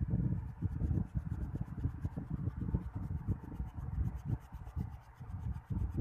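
An eraser rubbed back and forth over pencil lines on paper in quick, uneven strokes.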